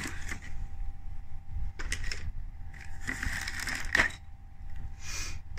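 Plastic-wrapped toy parts in a cardboard box being handled: crinkling, rustling plastic in several short bursts, with a sharp tap about four seconds in.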